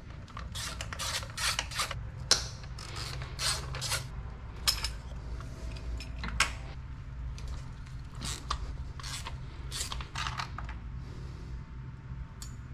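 Ratchet and socket clicking with metal knocks at irregular intervals as old spark plugs are taken out of a car engine, over a steady low hum.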